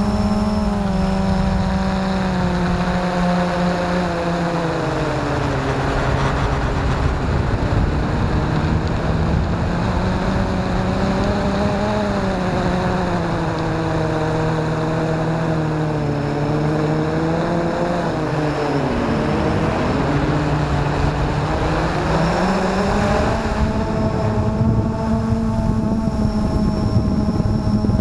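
Blade 350 QX2 quadcopter's four brushless motors and propellers whining steadily, heard from its onboard camera with wind noise. The pitch sinks about four seconds in, dips sharply near twenty seconds and climbs back a few seconds later as the motors change speed.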